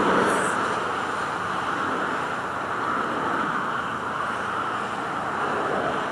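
Boeing 747-400's four jet engines at takeoff thrust as the airliner accelerates down the runway: a steady, even rush of engine noise.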